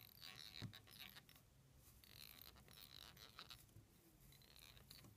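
Faint scratchy rustling of tying thread being wrapped from a bobbin to bind ice dubbing fibres onto the hook, with a few light ticks.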